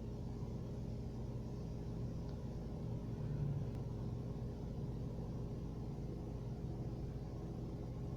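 Steady low hum of a car heard from inside, with a brief louder low groan about three and a half seconds in: the steering column noise on turning the wheel, which the manufacturer says is normal.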